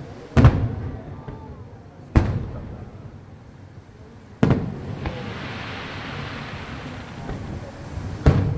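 Aerial firework shells bursting: four sharp bangs a second or two apart, each dying away slowly, with a stretch of hissing crackle after the third.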